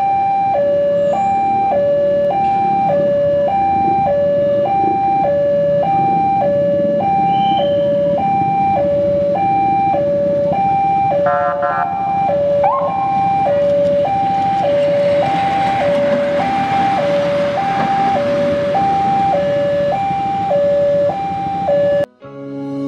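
Railway level-crossing warning alarm sounding a steady electronic two-tone signal, alternating high and low about once a second. A short horn beep comes about halfway, and the rumble of the approaching diesel locomotive builds through the second half before the sound cuts off near the end.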